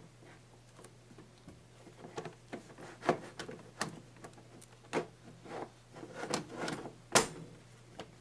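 Plastic clicks, knocks and scrapes of an air fryer's housing being worked and pushed into place, with irregular taps throughout and the sharpest knock about seven seconds in.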